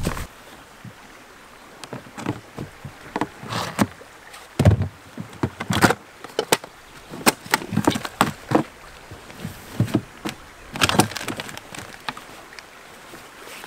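Gear being packed into a plastic sea kayak's deck hatch: irregular knocks and clatter of a metal cooking pot against the hatch rim and hull, with rustling of a fabric stuff sack being pushed in. The loudest knocks come about halfway through.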